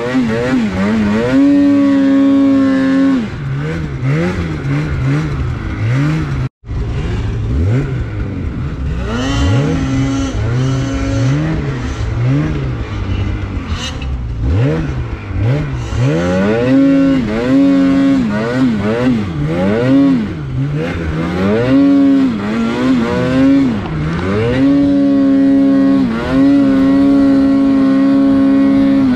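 Polaris RMK snowmobile's two-stroke engine revving up and down over and over while pulling through deep powder, its pitch rising and falling, then held high for long stretches near the end. The sound cuts out for a split second about six and a half seconds in.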